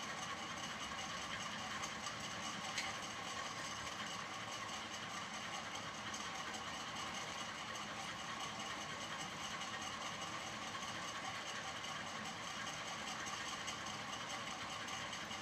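A steady, even droning noise with no clear rhythm or change, and a brief click about three seconds in.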